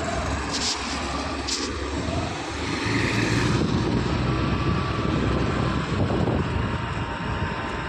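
A motorbike or scooter running steadily under way, with a low engine rumble and road and wind noise. There are two brief high hisses about half a second and a second and a half in.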